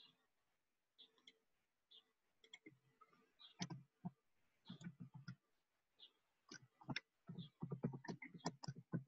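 Faint irregular clicking and tapping, sparse at first, then coming in quick runs in the second half, with faint short high chirps about once a second in the first few seconds.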